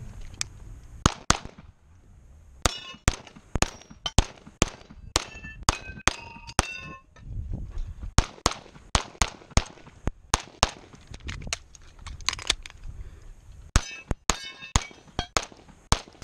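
Rapid pistol fire from an EMG Customs .38 Super Comp race pistol, shots coming in quick strings of two or more with short pauses between positions. A few shots are followed by a brief metallic ring.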